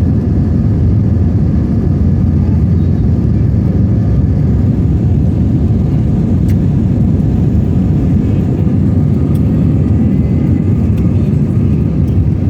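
Steady, loud rumble of a jet airliner heard from inside the cabin: engine and airflow noise with faint whining tones above it, unchanging throughout.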